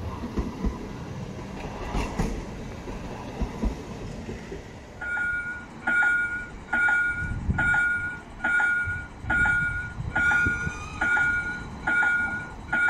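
A light-rail tram runs past on the rails, a rumble with a few sharp wheel clicks. About five seconds in, a warning bell starts ringing steadily, a two-tone chime a little faster than once a second, while another tram rumbles in toward the platform.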